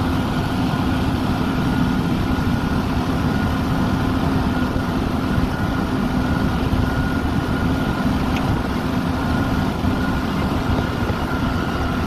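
Diesel engine of a CIFA K48 truck-mounted concrete boom pump running steadily to drive the hydraulics while the boom unfolds and rises, a steady low hum with a fainter higher tone over it.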